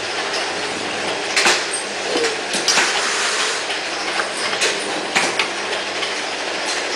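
Four-nozzle magnetic-pump filling machine running, its bottle conveyor and filling heads making a steady mechanical noise with sharp clicks and clacks at irregular intervals, about one a second.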